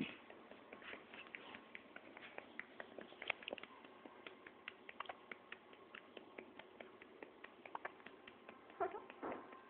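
A two-day-old newborn hiccupping: a quick string of faint little clicks, several a second, with two louder hiccup sounds near the end.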